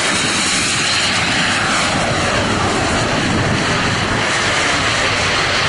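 Turbine engines of two giant-scale RC Viper Jet models, each rated at 19 kg of thrust, making a loud, steady rushing jet noise with a faint falling whine as the pair flies by in formation.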